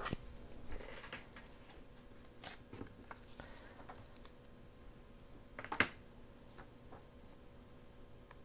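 Light handling clicks and taps of scissors and washi tape on paper: scissors snipping the tape and being set down. The sharpest click comes near six seconds in.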